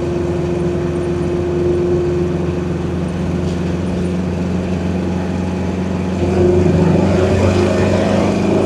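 1971 Chevrolet Nova SS's 350 V8 engine and exhaust running as the car drives along, with tyre and road noise. It gets louder about six seconds in as the car picks up speed.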